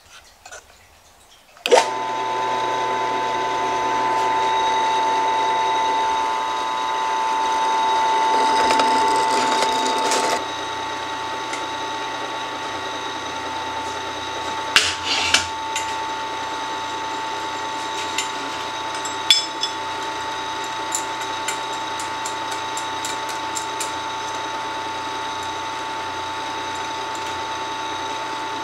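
WEN drill press motor switched on about two seconds in and running steadily with a whine. A few sharp metal clicks come later, as steel is set in the drill-press vise.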